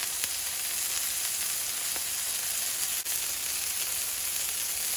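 Ground-beef smash-burger patties frying in a hot pan with a steady, even sizzle.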